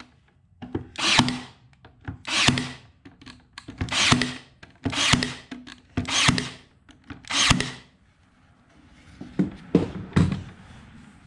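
Ryobi cordless nailer firing about six times, each shot a short whir and snap, roughly one every second and a quarter, driving fasteners into wood guide strips. Near the end, lighter knocks of the wood being handled.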